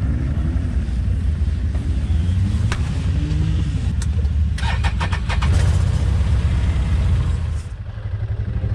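Can-Am Commander side-by-side's Rotax V-twin engine being started: a quick run of clicks and cranking about halfway through, over the steady low running of engines. Near the end the sound changes to the machine driving on gravel.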